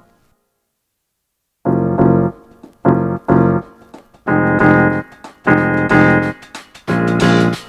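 Background piano music: a run of short chords struck in a steady, repeating rhythm, starting after about a second and a half of silence.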